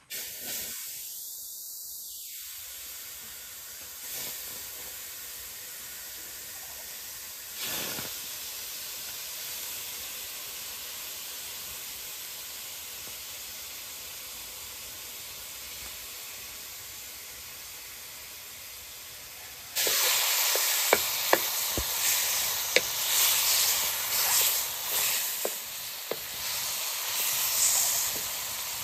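Food frying in a hot pan: a steady gentle sizzle, which about two-thirds of the way through suddenly turns louder, with crackling and popping oil.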